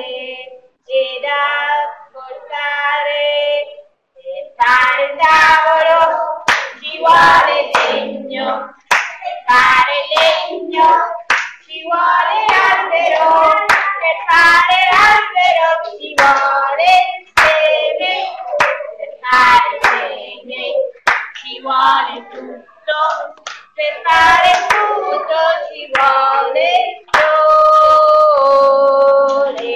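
A group of children singing a song together, with sharp hand claps along the way, ending on a long held note near the end. Heard through video-call audio.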